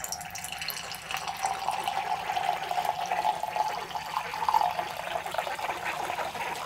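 Red wine pouring from a bottle through a Vintorio spout aerator pourer into a stemmed wine glass: a steady stream splashing into the filling glass.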